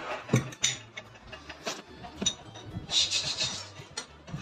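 Scattered light knocks and scraping as a baby handles a small metal frying pan and spoon, with a short rustle about three seconds in.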